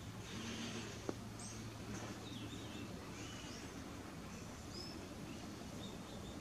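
Small birds chirping in short, scattered calls over a steady low hum of outdoor background noise, with a single sharp click about a second in.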